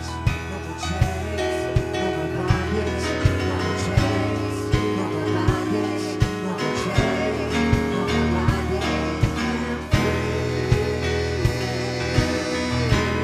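Live gospel worship band playing, with a steady drum beat about every three quarters of a second under sustained instruments.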